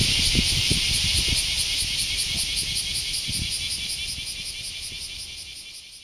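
Large brown cicada (abura-zemi) singing: a steady, high-pitched buzz with a fast, even pulse, fading out toward the end.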